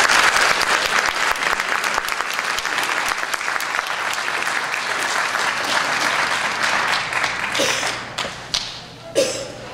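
Audience applauding, loudest at first and dying away over about eight seconds, with a couple of brief voices near the end.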